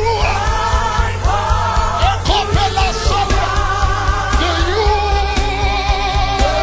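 Live worship music: a voice sings long, wavering held notes over a band with a steady bass and regular drum strikes.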